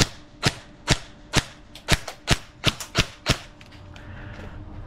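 Custom DSG airsoft electric rifle firing single shots in quick succession, about ten sharp cracks at two to three a second, as BBs strike a plastic face mask; a few fainter shots trail off near the end.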